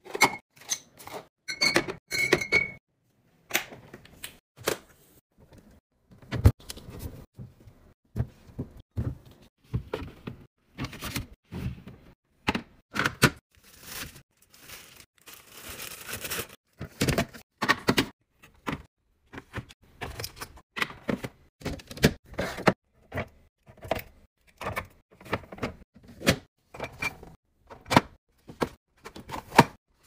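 Groceries being stacked into a refrigerator: a steady run of short clinks, knocks and clunks as glass drink bottles, cans and packaged foods are set down on shelves and into clear plastic fridge bins. Glass bottles clink and ring in the first few seconds, and plastic packaging rustles briefly around the middle.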